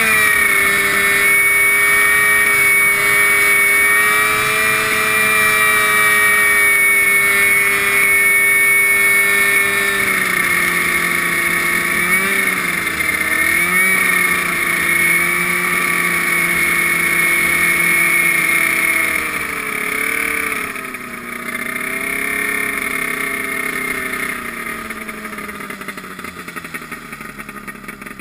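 Engine of a riding lawn mower converted into a snow vehicle, running at a steady high speed through its upright exhaust stack. About a third of the way in it throttles back, wavers twice, then slows gradually toward the end as the machine pulls in.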